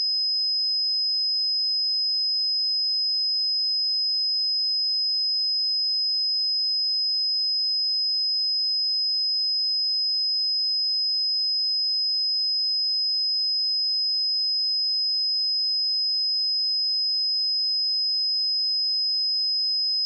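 Steady pure sine-wave test tone at 5063 Hz, a single unchanging high-pitched tone, used for testing speakers and headphones.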